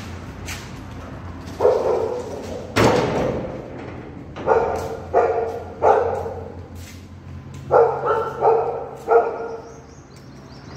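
A dog barking: a single bark, then two runs of three evenly spaced barks. A sharp bang sounds about three seconds in.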